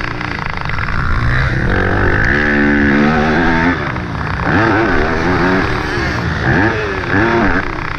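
Yamaha YZ250F's 250 cc four-stroke single-cylinder engine revving up and dropping off as the rider works the throttle and gears on a motocross track. There is one longer climb in the first half, then several quick rises and falls, over wind rush on the helmet-mounted microphone.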